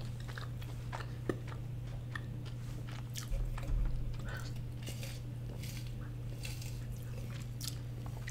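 Close-miked chewing of cheesy loaded fries with the mouth closed: small wet mouth clicks and soft crunches scattered through, over a steady low hum. A soft low bump comes a little over three seconds in.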